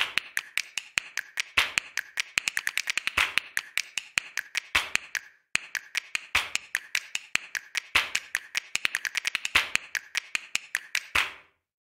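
Rapid sharp clicks and taps, several a second, with a short swell of hiss about every second and a half, cutting off abruptly near the end.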